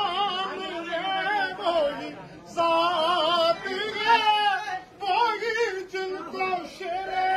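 Naat recitation: an unaccompanied voice sings a devotional poem in long, wavering melodic phrases with short breaks between them.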